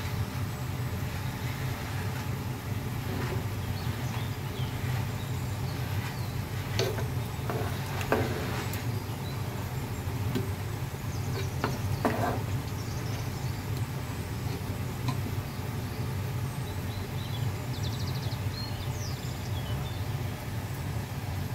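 A steady low hum with a few short knocks and scrapes of a spoon against a cooking pot as a beef curry is stirred, mostly in the middle stretch.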